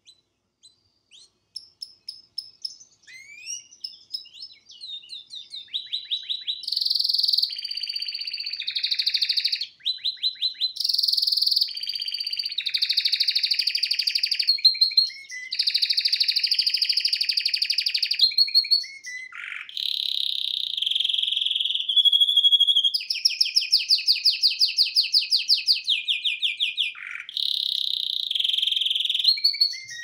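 Domestic canary singing: scattered chirps and whistles at first, then about six seconds in a long song of rapid trills and rolls, each phrase lasting a second or two before switching to a new pattern.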